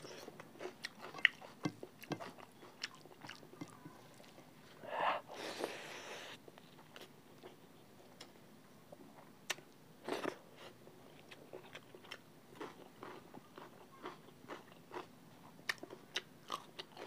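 Close-miked eating sounds of a person eating rice and curry gravy by hand: chewing and biting with many short, wet mouth clicks and smacks.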